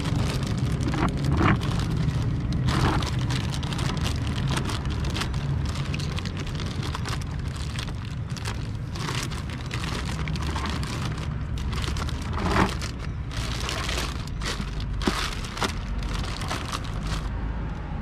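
Clear plastic bag liner crinkling and rustling in irregular crackles as it is pushed and smoothed into a vacuum cleaner's collection tank, over a steady low rumble.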